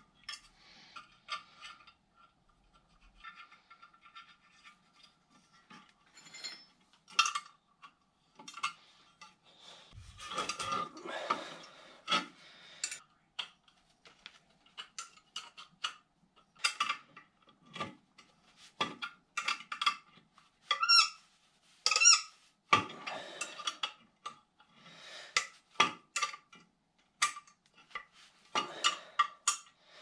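Irregular metal clinks, taps and scrapes as a furnace's gas manifold and gas valve are handled with hand tools, with short squeaks and rubbing between them. The loudest clinks come about two-thirds of the way through.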